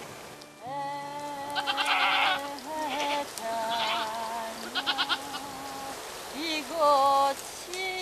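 Several black goats bleating: long, wavering calls that overlap one another, starting about half a second in, with the loudest call near the end.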